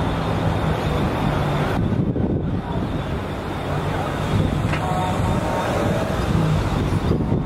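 Steady street traffic noise: car engines running and cars moving around, at an even level.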